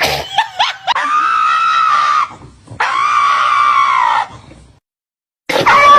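Two long, high-pitched screams, each held for about a second and a half with a slight rise and fall in pitch. The sound cuts to silence, and a short loud cry starts near the end.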